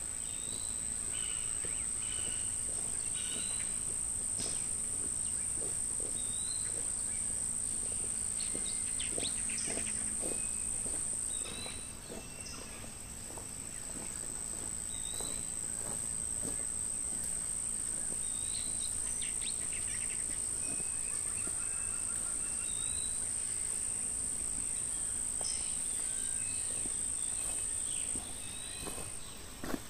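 Steady high-pitched insect drone that falters briefly twice, with short bird chirps scattered through it.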